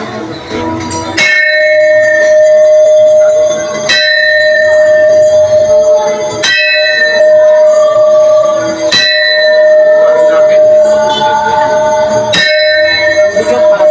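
A hanging length of rusty metal pipe, used as a bell, struck with a stick five times about every two and a half to three seconds. Each strike rings on in one clear, steady tone that carries into the next.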